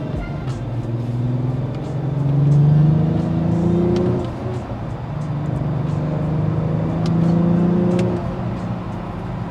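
The 2022 Acura TLX Type-S's turbocharged 3.0-litre V6, fitted with an upgraded intercooler and charge pipes, accelerates hard. The engine note climbs in pitch and drops at an upshift about four seconds in and again about eight seconds in.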